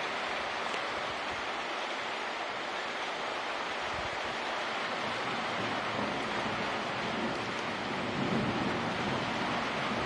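Steady rain falling, a continuous even hiss. A low rumble swells under it near the end.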